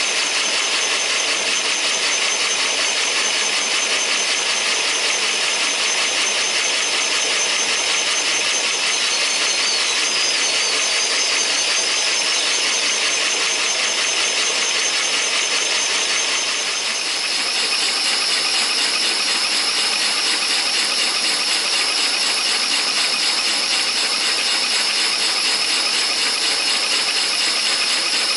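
LEGO twin-cylinder double-acting vacuum engine running steadily at full speed, around 360 rpm: a fast, even clatter of plastic cranks, rods and valves over the hiss and high whine of the vacuum cleaner that drives it. The whine shifts in pitch about two-thirds of the way through.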